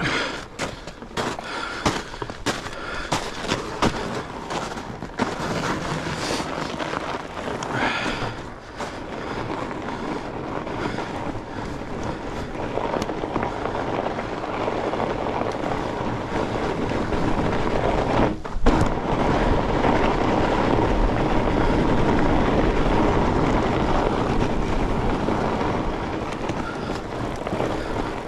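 Fat bike riding over a frozen, rutted trail. For the first several seconds the bike rattles and knocks over bumps, then a steady rush of tyre and wind noise grows louder with a low rumble.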